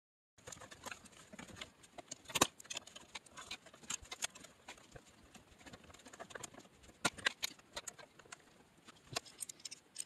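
Small clicks, scrapes and knocks of metal parts and bolts being handled at a manual-transmission shifter mount, with sharper knocks about two and a half and seven seconds in.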